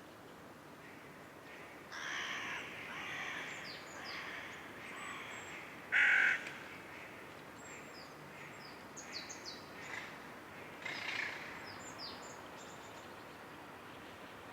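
Birds calling: a run of harsh calls lasting a few seconds, one loud short call about six seconds in, then a scatter of brief high chirps.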